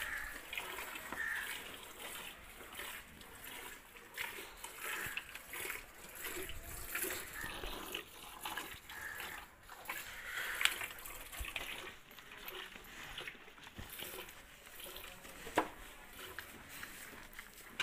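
Cow being milked by hand: streams of milk squirting into a stainless steel bucket in rhythmic spurts, about one or two a second, as the hands alternate on the teats. A sharp knock late on.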